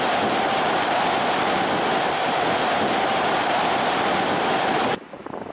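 Steady, loud rush of wind and road noise from a car driving at highway speed, with a steady whine under the rush. It cuts off suddenly about five seconds in, leaving a quieter, uneven crackle.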